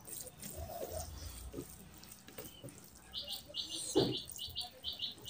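Wet squishing of a hand kneading rice into oily mutton curry on a plate, then a louder wet mouth smack about four seconds in as a handful is eaten. A rapid series of short high chirps runs in the background through the last two seconds.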